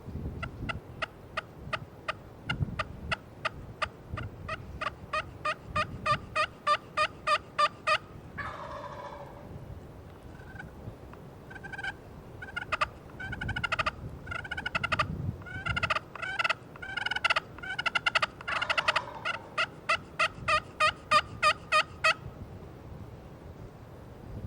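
Turkey calling: a long run of short, evenly spaced notes, about four a second, growing louder. A brief rattling call comes at about eight seconds, then another long series of notes.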